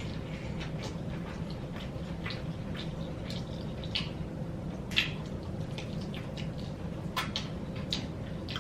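Close-up eating sounds: irregular wet smacks and clicks of chewing fried chicken, the sharpest about four and five seconds in, over a steady low hum.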